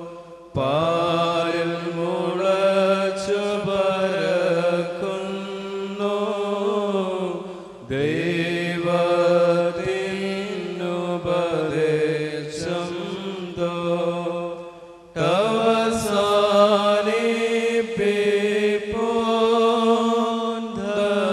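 West Syriac liturgical hymn chanted by voices holding long, slowly moving notes. It is sung in long phrases with brief breaks about 8 and 15 seconds in.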